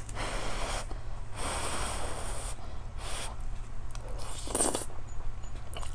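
Close-miked breaths and sniffs through the nose while eating, four in a row with short gaps between them, over a steady low hum.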